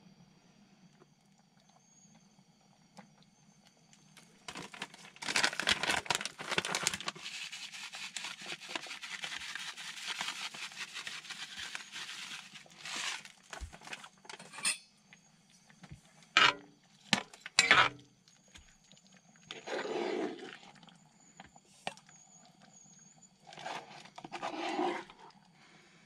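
Cooking noise at a cast-iron pot of soup: several seconds of dense stirring and scraping, then a few sharp metal clinks of utensils. Near the end come softer scoops as soup is ladled into a metal bowl.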